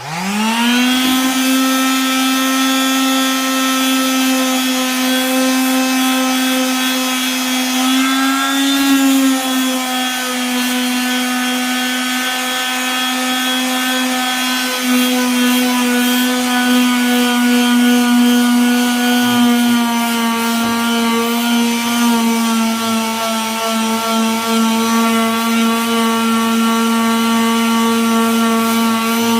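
Hitachi electric sander switched on and spinning up to speed within about a second, then running steadily with a pitched whine as it sands cured two-part epoxy flat; the pitch wavers slightly at times.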